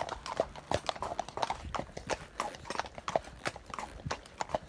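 Hooves of several horses clip-clopping on a hard surface, a quick, uneven run of overlapping hoof strikes.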